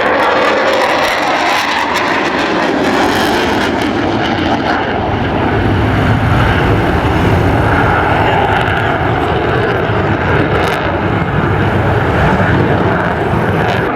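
Aircraft engine noise from a plane flying a display, loud and continuous, growing fuller in the low end about a third of the way in.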